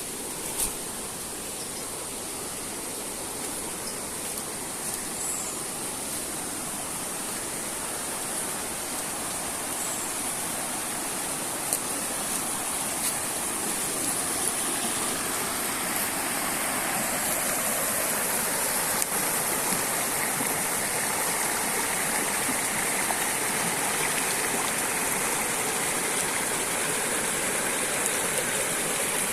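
Flowing stream or waterfall water: a steady rushing that grows gradually louder. A couple of sharp clicks come about half a second in.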